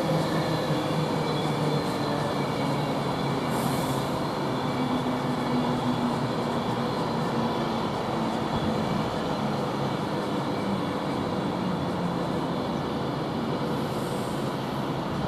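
Class 390 Pendolino electric train running slowly into the platform, a steady rumble with faint humming tones that eases off gradually.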